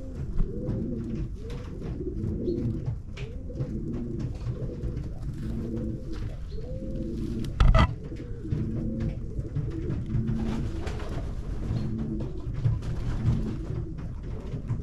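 A flock of domestic pigeons cooing continuously, many low rolling coos overlapping one another. A single loud thump about halfway through.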